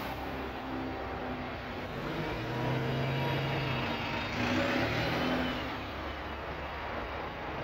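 Single-deck buses passing close by and pulling away, engines running with a low hum and tyre noise, swelling loudest a little past halfway.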